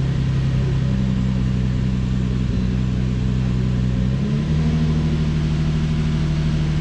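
Infiniti G35's 3.5-litre V6 idling high on a cold start, with freshly fitted spark plugs; the idle note steps up slightly about four seconds in.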